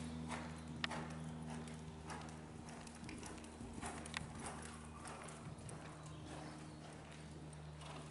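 A pony's hooves striking a soft indoor arena surface at the canter, a run of muffled hoofbeats, over a steady low hum.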